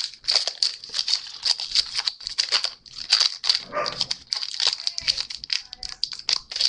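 Crinkling of a foil Redakai booster-pack wrapper being handled, a dense run of quick crackles, with a short pitched sound about four seconds in.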